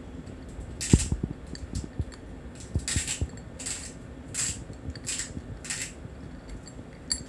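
Ginger tabby cat biting and crunching dry, uncooked macaroni in a ceramic bowl, the hard pasta cracking and clinking against the bowl. There is a sharp crunch about a second in, then a run of about five more from about three seconds in.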